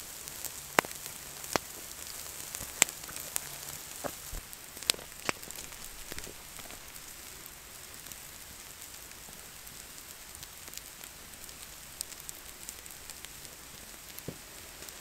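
Marinated turkey breast sizzling as it cooks: a steady hiss with sharp pops and crackles, most of them in the first five seconds.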